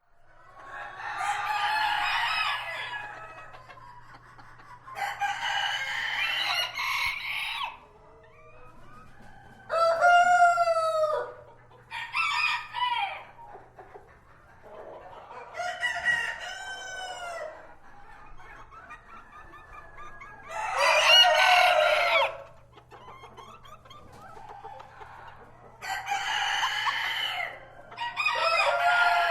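Roosters crowing, about eight long crows a few seconds apart, from more than one bird.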